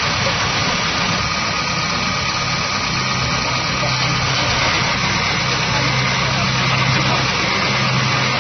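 Engine-like running sound: a steady idle with an even low hum and no revving or sudden noises.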